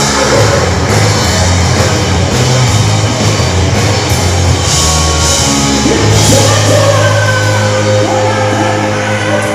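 Loud rock music: a band with drum kit, bass and a singing voice.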